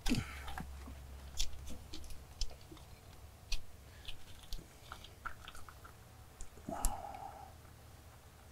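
Irregular small metallic clicks and clinks of a wrench and a high-pressure oil line fitting being handled and threaded onto a cylinder-head port. One brief muffled sound comes near the end.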